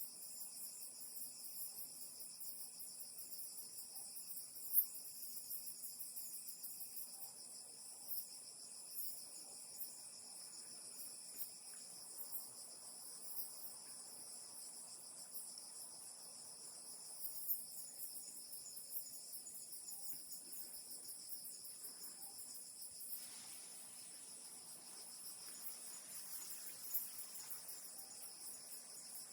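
A steady chorus of night insects such as crickets, trilling at a high pitch, with a few brief faint ticks.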